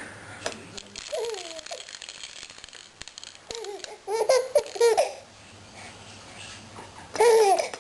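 Baby laughing in short pitched bursts: one laugh a second in, a quick run of laughs about four seconds in, and another near the end, with a few light clicks between them.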